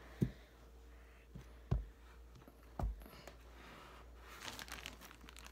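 Three soft, low thuds, the middle one the loudest, then faint rustling near the end: kinetic sand being dropped, patted and handled on a hard surface.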